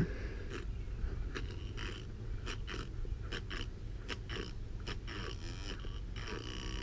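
Homemade weed-cutter blade on an RC crawler hacking at tough weed stalks: a run of sharp snaps and clicks over a steady low hum from the running drive.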